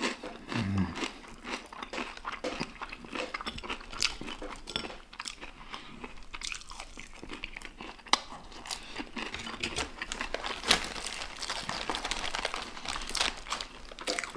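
Chewing and crunching of crispy fried chicken, a run of short crackly crunches with a couple of sharper cracks about eight and eleven seconds in.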